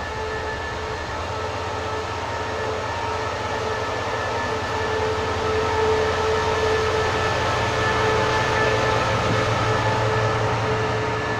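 A diesel-electric locomotive, SRT No. 5226, pulls slowly past with its engine running: a low rumble under a steady multi-tone whine. It grows louder as the locomotive's body goes by and eases slightly near the end as the coaches follow.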